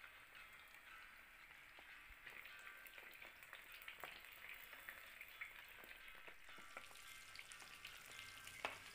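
Breadcrumb-coated chicken leg pieces deep-frying in hot oil: a faint, steady sizzle with fine crackling. A few light clicks come from a slotted spoon touching the pan as the pieces are turned, the clearest near the end.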